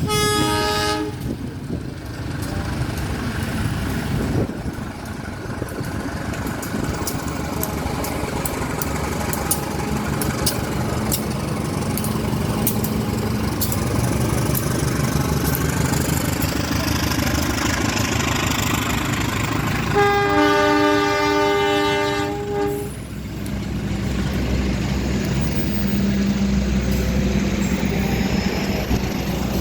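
A train horn chord sounds briefly at the very start. Then a passing train rumbles on, with a run of rapid wheel clicks over the rails and a low engine drone. The horn sounds again for about three seconds, around twenty seconds in.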